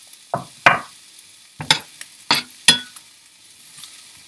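Metal spatula scraping and stirring diced onion and green bell pepper in a Blue Diamond ceramic nonstick frying pan, about five strokes in the first three seconds. The vegetables sizzle faintly in the hot oil in between, and only the sizzle is left near the end.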